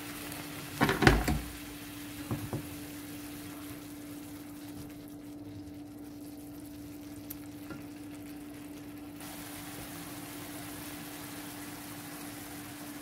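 Tomato and onion sauce sizzling in a frying pan. A wooden spoon knocks and scrapes against the pan in a loud cluster about a second in, then taps briefly again at about two and a half seconds, over a steady low hum.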